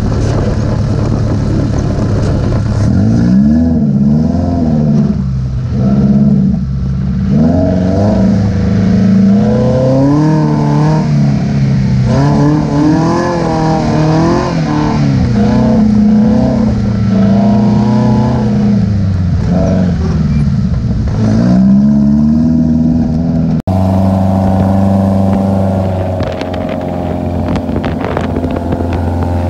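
Dune buggy engine revving up and down over and over as the buggy drives over sand dunes. About three-quarters of the way through, the sound cuts to an engine running at a steadier pitch.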